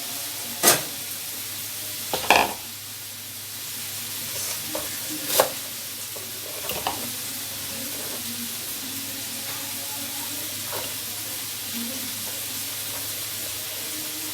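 Kofta sizzling on a hot stovetop grill pan, a steady hiss, with a few sharp knocks of a knife on a cutting board as vegetables are cut.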